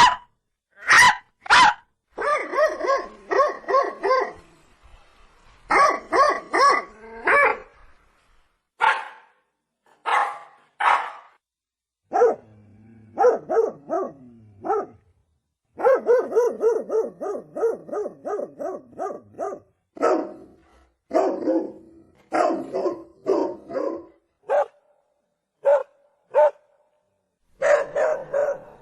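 Dog barking repeatedly: single barks and quick runs of barks, with short pauses between them.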